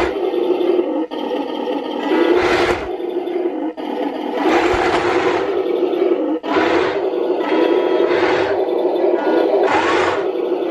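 1:16 RC Sherman tank running on its Heng Long RX-18 sound board: a simulated tank engine with a steady low tone, surging in noisy revs about every two seconds as the tank drives. The gear motors and plastic tracks add a whirring scrape on the laminate floor.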